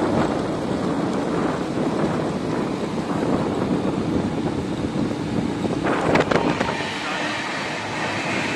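Wind buffeting the microphone over a motorcycle riding along a road. About six seconds in it gives way to a passenger train rolling past a level crossing.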